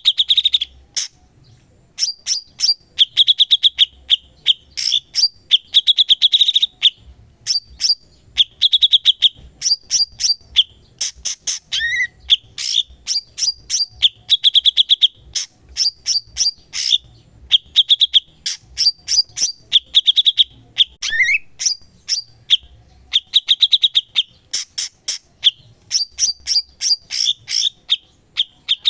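Cucak cungkok, a bulbul, singing hard: fast chattering trills and runs of sharp high notes in phrases every second or two, with a short rising note twice.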